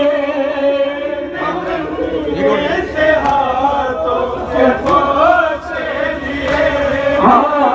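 Group of men's voices chanting a noha, a Shia mourning lament, together in a slow melody with long held notes.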